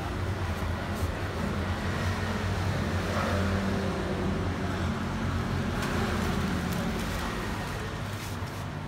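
Steady low rumble of road traffic, with a motor vehicle's engine running close by. The rumble eases a little near the end.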